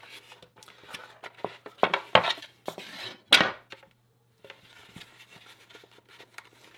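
Wooden ring section being pressed and worked into place around the rim of a leather-faced shield: a run of sharp knocks and clicks of wood, the loudest few between about two and three and a half seconds in, over a faint steady hum.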